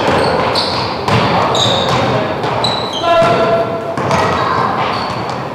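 Basketball game in play: the ball bouncing and thumping on the court among short high squeaks of shoes, with a brief shout about three seconds in.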